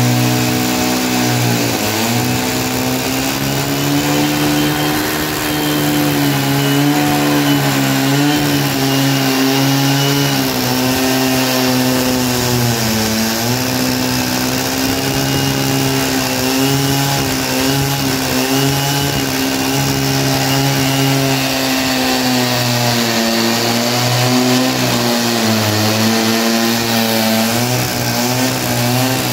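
Chainsaw engine running at high speed while cutting through a pine log, its pitch sagging briefly three times as the chain loads up in the cut and then recovering.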